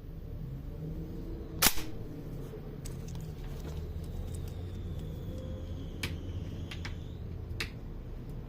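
Mechanical clicks of the five-shot gun's action being handled: one sharp click about a second and a half in, then three lighter clicks near the end, over a low steady hum.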